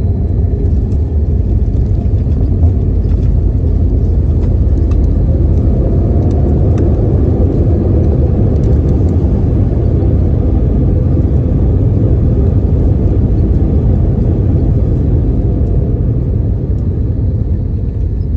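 Cabin noise of an Airbus A320 on its landing roll with the spoilers raised: a loud, steady rumble of engines and wheels on the runway, with a broader rush swelling in the middle and easing off near the end.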